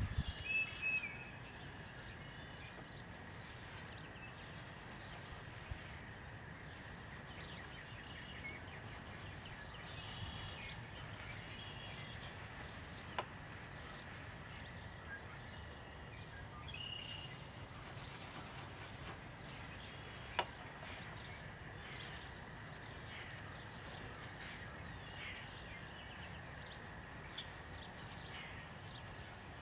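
Outdoor ambience with small birds chirping on and off over a low rumble and a faint steady high tone; two soft clicks stand out, about a third of the way in and again past the middle.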